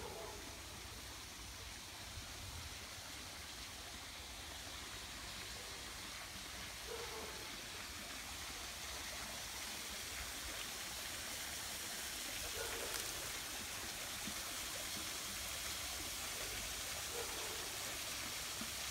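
Water falling steadily from a pool's cascade water feature into the pool, slowly growing louder.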